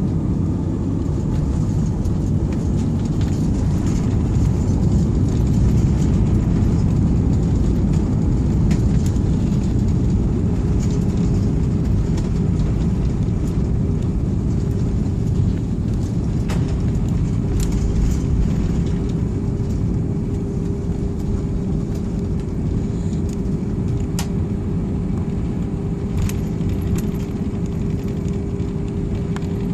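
Steady low rumble of an airliner's engines and airframe heard from inside the passenger cabin, with scattered faint clicks and, from about eleven seconds in, a steady hum.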